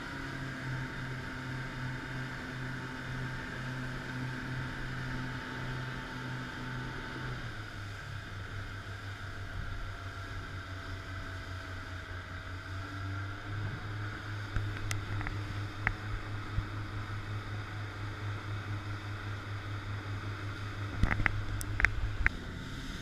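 Boat's twin outboard motors running under way, with the rush of the foaming wake; the engine note drops a little about seven seconds in. A few short knocks sound near the end.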